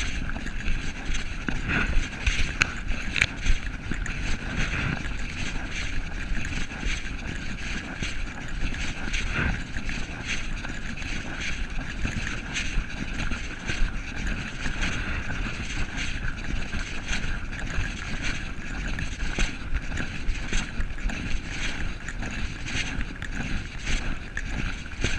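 Muffled rumble and rubbing of a body-carried camera in its case while moving along a trail, with wind on the microphone and many small irregular knocks.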